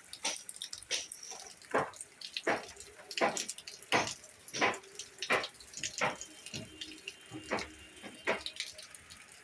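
Water dripping and splashing in separate, irregular plops, roughly one or two a second.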